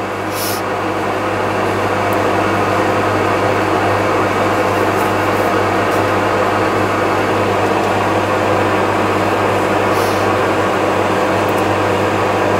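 Challenger MT765B tractor's diesel engine idling steadily at about 1000 rpm, heard from inside the cab as a low, even hum.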